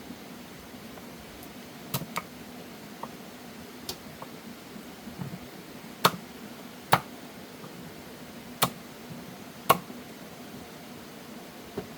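Sharp, separate knocks or taps, a few seconds apart and unevenly spaced, over a faint steady background.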